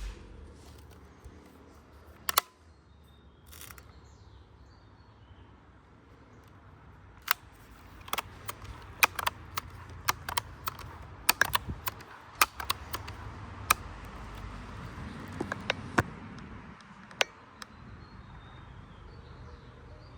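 A single sharp shot from a Daisy Powerline 880 multi-pump air rifle a couple of seconds in, followed by a long run of mechanical clicks and handling noise as the rifle is cocked, loaded and pumped for the next shot.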